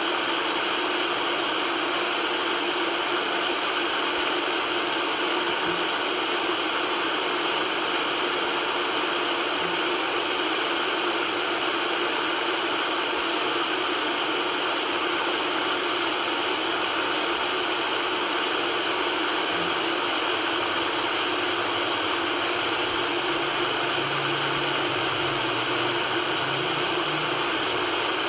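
Steady white noise hiss with almost no bass, unchanging in level throughout.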